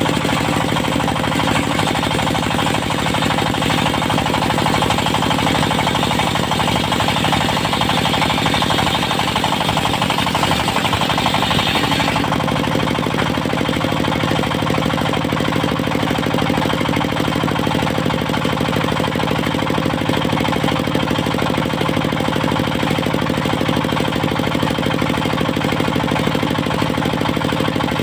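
The engine of a portable circular sawmill running steadily, with an added higher-pitched saw noise over it for about the first twelve seconds that ends abruptly.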